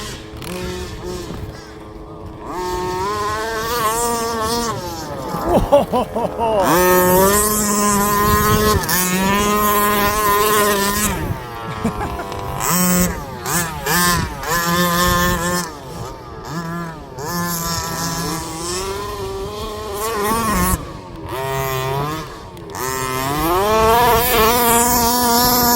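Small two-stroke petrol engines of 1/5-scale RC buggies, revving up and dropping back again and again as the buggies are driven hard on dirt.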